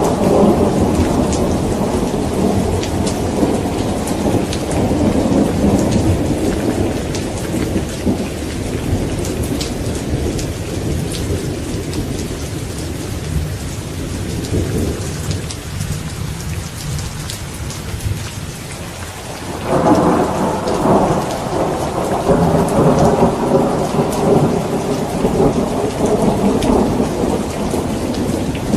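Steady rain falling throughout, with rolling thunder: one rumble dies away over the first several seconds, then a new peal breaks in suddenly about two-thirds of the way through and rumbles on.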